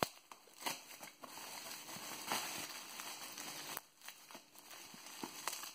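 Plastic bubble wrap crinkling and rustling as it is handled and unwrapped by hand, in irregular surges, with a sharp click right at the start.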